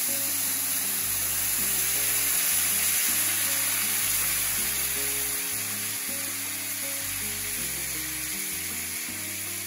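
Chicken broth sizzling and boiling hard in a hot stainless steel skillet as it deglazes the browned bits left from searing chicken, the loud sizzle slowly easing as the pan cools. Background music plays underneath.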